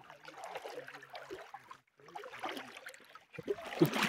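A low, indistinct man's voice talking over the steady hiss of flowing river water, with a bump of phone handling near the end.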